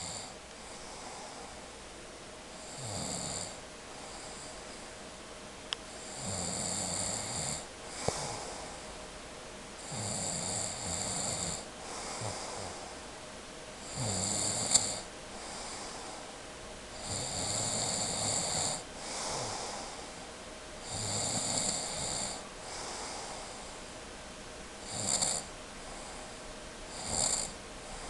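A person snoring in sleep, about eight snores with a quieter pause between each, one every three to four seconds, a few of them shorter near the end. A few brief sharp clicks fall in between.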